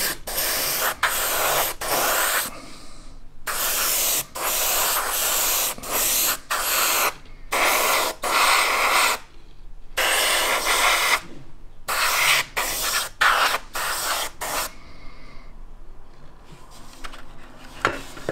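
Gravity-feed airbrush spraying paint onto a plastic model: a hiss of air and paint in short bursts, the trigger pressed and let go again and again. The bursts stop about fifteen seconds in.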